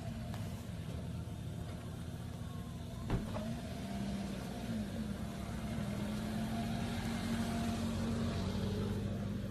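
An engine running steadily, its pitch wavering slightly, with one sharp knock about three seconds in.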